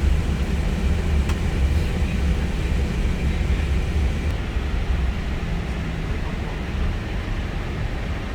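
Steady low rumble on the flight deck of an Airbus A320 rolling on the ground after landing, with the engines at idle, and a faint tick about a second in.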